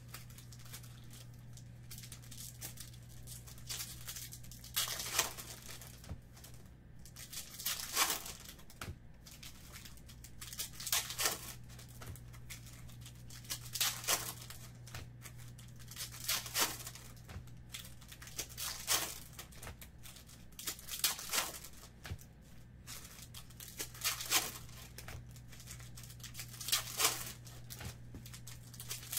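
Topps Chrome baseball card foil packs being torn open and crinkled by hand, one after another. A sharp rip comes every two to three seconds over a steady low hum.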